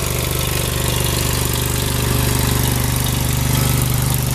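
Pressure washer engine running steadily, with an even hiss over it.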